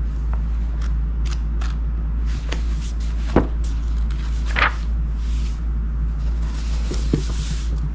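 Paper pages of a softcover workbook being flipped and turned: scattered short rustles and clicks, with a longer soft swish of pages near the end. Under it, a steady low hum.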